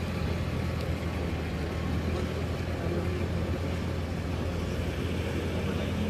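2015 Nissan GT-R's twin-turbo V6 idling with a steady low hum, holding an even pitch with no revving.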